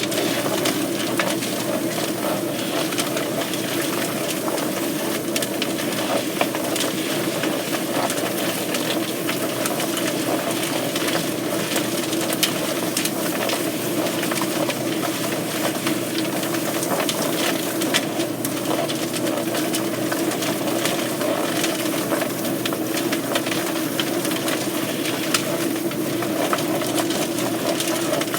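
Mechanical poultry plucker running with a chicken inside: a steady machine drone under the hiss of a hose spraying water, with occasional sharp clicks.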